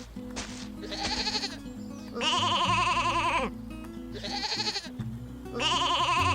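Sheep bleating over background music: a long, wavering baa about every three seconds, each followed by a shorter, softer one.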